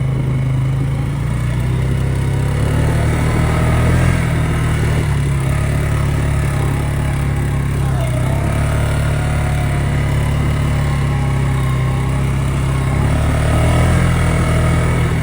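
Polaris Sportsman ATV engine running under way, a steady low drone with small rises and falls in engine speed, a little higher near the end.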